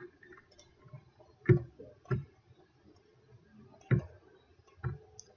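Four computer mouse clicks at uneven intervals, as the menu items and objects on screen are selected.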